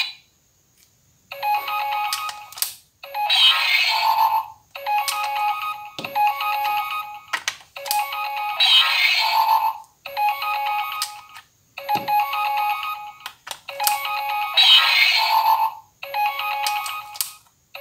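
Auldey DX Rescue Driver toy transformer playing its electronic sound effects through its small speaker: a short pitched melody that starts about a second in and repeats every few seconds, with a few sharp clicks between the phrases.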